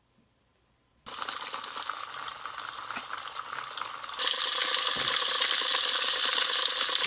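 3D-printed PLA dual-stage planetary gearbox driven by a small DC motor, running with a steady whirring rattle of meshing plastic gears, here lubricated with Vaseline. A little over three seconds later it changes to the same gearbox with no lubricant, which is louder, with more high-pitched rasp.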